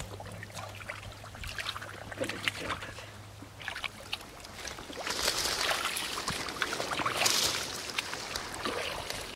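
Hands and feet working through shallow, muddy water: sloshing, splashing and squelching of mud in many short strokes. It gets louder and busier about halfway through.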